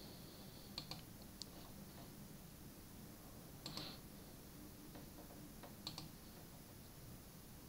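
A few faint, sharp clicks from a smartphone's side buttons and fingers on the handset. A small cluster comes about a second in, then single clicks a few seconds apart. These are the volume-up and power keys being held to boot into recovery.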